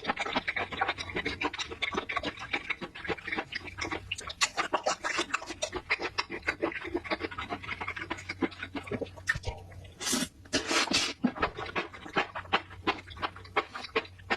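Close-miked eating: rapid, irregular wet chewing and mouth smacks, with a louder burst about ten seconds in.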